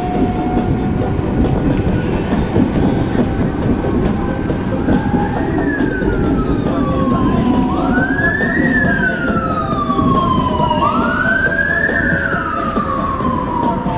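An emergency vehicle siren wails, its pitch rising quickly and falling slowly in sweeps about every three seconds. It starts faintly about five seconds in and grows louder, over the steady rumble of a double-decker tram running on its tracks.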